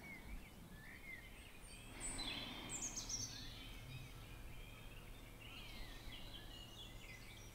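Faint birdsong: short falling chirps and whistles, mostly from about two seconds in, over a soft steady hiss.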